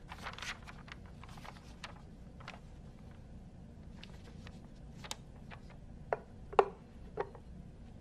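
A sheet of paper rustling as it is handled, followed by a few faint ticks and then three sharp taps near the end, the middle one the loudest.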